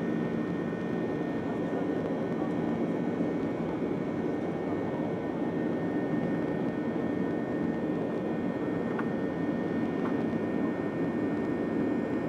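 Steady cabin noise inside a Boeing 737-700 climbing after takeoff: the hum of its CFM56-7B turbofan engines and rushing airflow, with a few faint steady whining tones above it.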